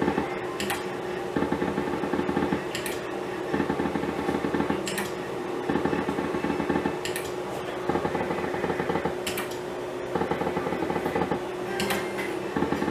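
Cash slot machine playing spins back to back: a quick rattling tick runs for about a second on each spin, with a sharp click roughly every two seconds, over a faint steady electronic tone.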